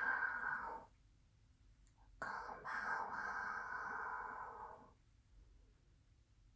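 A woman's close-miked breathing: one breath tails off just under a second in, then a long, steady, sigh-like exhale of almost three seconds starts about two seconds in.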